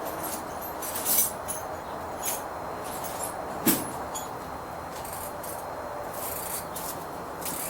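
Scattered light metallic clinks and clatter of hand tools being moved about, as in a search through a toolbox, with one sharper knock about halfway through, over steady background hiss.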